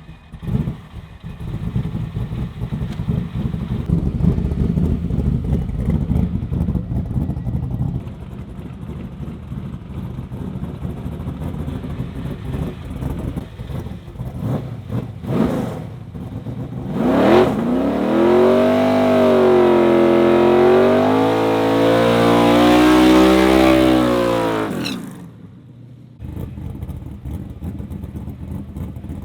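Drag car's engine running loudly at the line, then launching about halfway through: the revs climb and waver up and down for several seconds instead of pulling cleanly, then cut off sharply. This is an aborted pass; the driver says the slipper clutch was not releasing properly. A lower engine idle follows.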